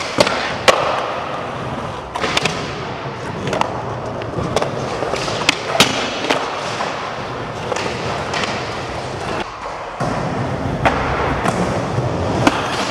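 Skateboard wheels rolling and rumbling on the park floor, with a truck grinding along a ledge and repeated sharp clacks as the board pops, hits and lands.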